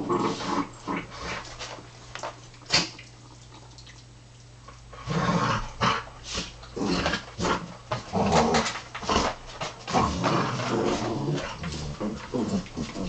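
A springer spaniel and a Jack Russell terrier play fighting, growling in bursts. The growling eases off with one short sharp sound about three seconds in, then runs almost without a break from about five seconds in.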